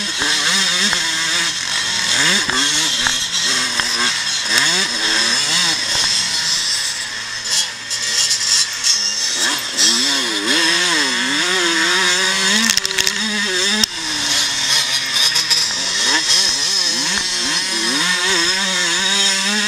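Pre-1990 motocross motorcycle engine racing on track, its pitch repeatedly climbing and dropping as the throttle is opened and closed through the corners and straights, heard from on board the bike.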